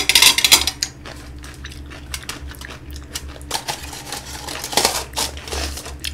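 A clatter as a jar and chopsticks are set down on the table, then aluminium foil crinkling as it is pressed over the jar's mouth, with small clinks.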